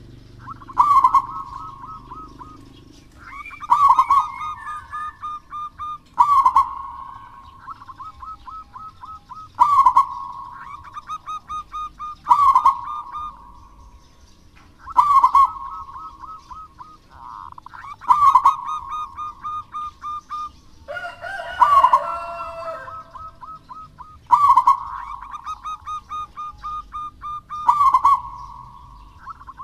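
Zebra dove (perkutut) cooing over and over, about ten phrases roughly three seconds apart, each a loud note followed by a quick run of short notes. A rougher call overlaps one phrase about two-thirds of the way through.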